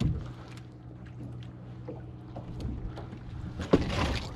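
Boat's outboard motor idling with a steady low hum. About three and a half seconds in there is a sharp knock, followed by rustling as the net fish trap is handled.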